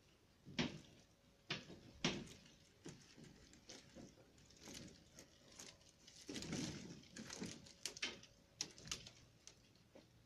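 Irregular knocks, clicks and crinkles of plastic sheeting and a metal frame as a person moves across a canopy roof covered in torn polycarbonate. The two sharpest knocks come within the first two seconds, and there is a longer rustle a little past the middle.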